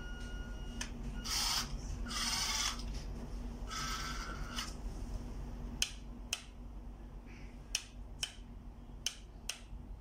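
Radio-controlled LESU skid steer loader model working its functions: three short bursts of whirring from its motors in the first half, then a series of sharp clicks, mostly in pairs.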